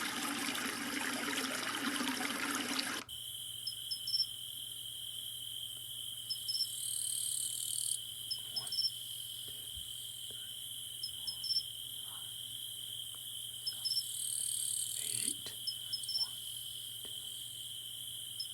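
A white noise machine's small speaker plays its flowing-water track for about three seconds, then switches abruptly to a recorded cricket track. The crickets keep up a steady high trill with brief chirps above it, and the recording repeats about every eight seconds.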